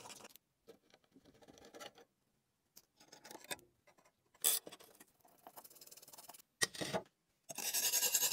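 Metal hand tools scraping and picking at heavily rusted steel parts in short separate bursts with abrupt silences between. Starting about a second before the end, a wire brush scrubs rust off a steel blade in quick rhythmic strokes; this is the loudest part.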